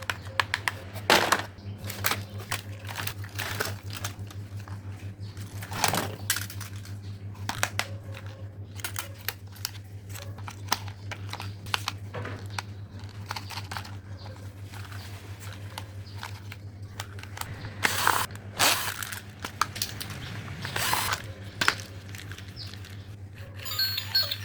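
Old toys being handled and rummaged through: a run of small clicks and knocks, with a few louder clatters about a second in, around six seconds and again between eighteen and twenty-one seconds, over a steady low hum.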